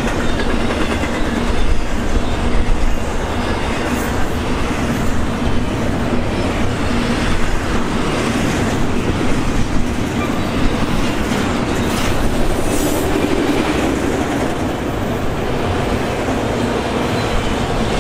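Freight train passing: double-stack intermodal container cars and then enclosed autorack cars rolling by at steady speed. Steel wheels clatter over the rail joints on a continuous rumble, with a few sharper clanks.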